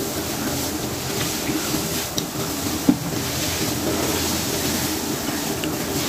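Light clinks of chopsticks and bowls while eating noodles, over steady rushing background noise with a low hum. One sharp knock sounds just before three seconds in.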